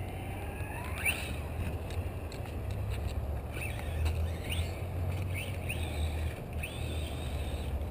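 Electric motor of an Axial EXO Terra radio-controlled buggy whining, its pitch rising and falling with the throttle in several short bursts and holding steady near the end, over a steady low rumble.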